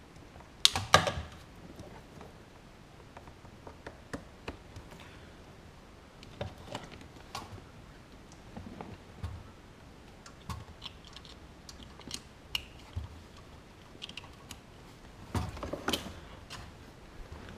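Plastic wiring-harness connectors and a car radio head unit being handled: scattered small clicks and rattles, with louder knocks about a second in and again near the end.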